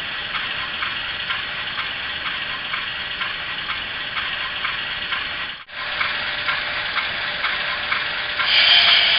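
Sound-decoder recording of a GE U28C diesel locomotive running, played through an HO scale model's small onboard speaker: a steady hissing drone with light ticks about three times a second. The sound cuts out for an instant about five and a half seconds in, and a louder, brighter sound comes in near the end.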